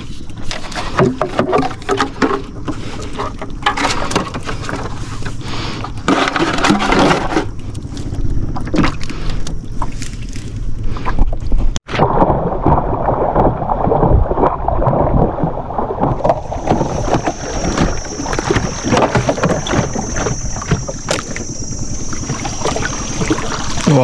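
Irregular knocking, scraping and clattering of crab traps and catch being handled aboard a small boat, with a steady high-pitched hum joining about two-thirds of the way in.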